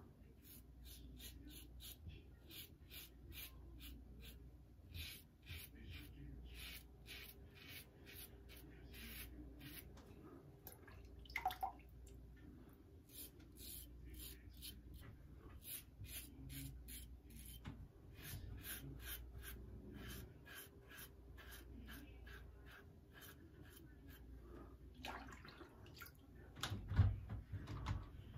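Double-edge safety razor scraping through lather and stubble on the neck and chin: short, faint, scratchy strokes at about two a second, with brief pauses. A couple of low knocks near the end.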